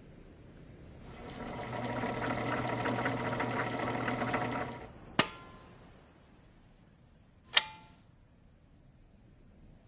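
A buzzing mechanical rattle that rises in about a second, runs for about four seconds and stops, followed by two sharp clicks with a short ring, about two and a half seconds apart.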